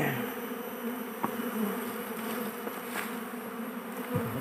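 Many Asian honeybees (Apis cerana) buzzing in a steady hum around a hive box as the colony is being moved, with a few light knocks from the plastic box being handled.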